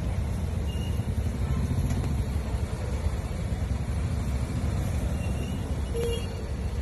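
Steady low rumble of road traffic, cars and scooters passing close by.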